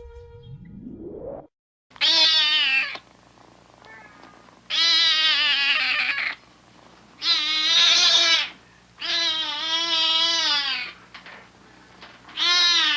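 Domestic cat howling: five long, drawn-out yowls with a wavering pitch, each lasting one to two seconds with short pauses between. Before the first yowl, a held tone ends and a short rising sweep plays.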